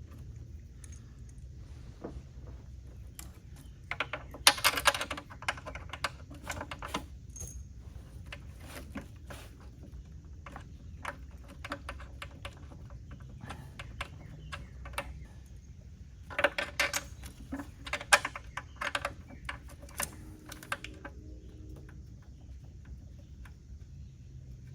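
Ratchet wrench clicking in two bursts of rapid metallic clicks, about four seconds in and again around sixteen seconds in, while running down the bolts of a new intake manifold, over a low steady hum.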